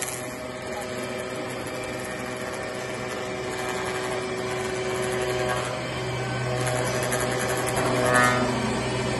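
Log-rounding and grooving machine running, its electric motor and cutter head milling a log as the carriage travels along it, a steady hum that slowly grows louder. A brief louder rise about eight seconds in.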